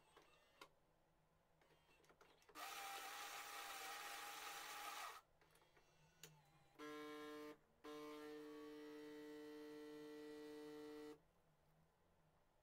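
Philips 5400 automatic coffee machine at work while dispensing a drink. About two and a half seconds in, a hissing whir runs for about two and a half seconds. After a pause comes a steady buzzing hum, first briefly and then for about three seconds before it stops.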